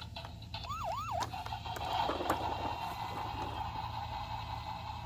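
Fire-truck siren sound for a toy fire truck: two quick up-and-down yelps, then a steady wail that carries on for a few seconds, with a couple of light clicks about two seconds in.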